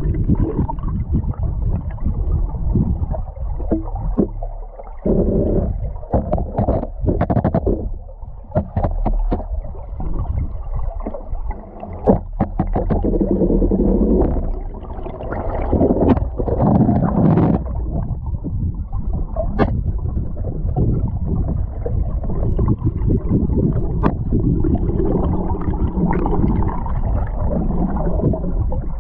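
River current rushing over rocks, heard from a camera submerged in the stream: a steady low rumble and gurgle, with scattered knocks and clicks as the camera rig bumps against the boulders.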